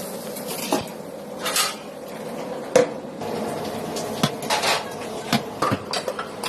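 Metal utensils and cookware clinking and knocking in a string of separate sharp strikes, the loudest about three seconds in, over a steady low hum.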